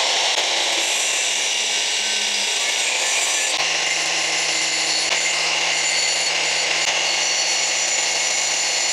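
Angle grinder's spinning abrasive disc grinding a steel screwdriver bit clamped in a vise, sharpening it to an edge. The grinding is steady and even, its tone shifting slightly about three and a half seconds in.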